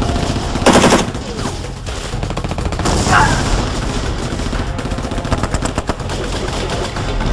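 Battle gunfire: rapid automatic weapon fire with dense overlapping shots, and one loud bang a little under a second in.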